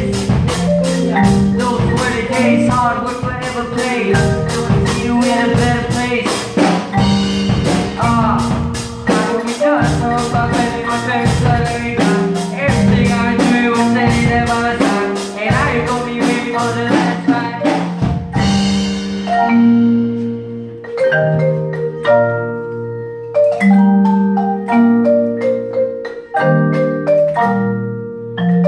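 Percussion ensemble playing marimbas and a vibraphone: a melody of struck mallet notes over low, ringing bass notes. A steady ticking beat runs under it and drops out about 18 seconds in, leaving sparser, longer-ringing mallet notes.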